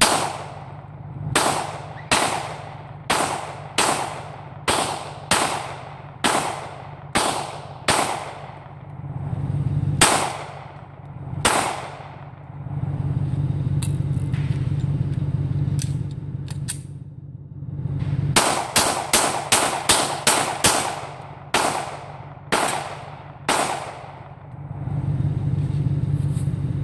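A .40-calibre pistol being fired in strings: about a dozen shots at an even pace, a pause of several seconds with a few faint clicks, then a fast run of about eight shots and a few more. A steady low hum runs underneath.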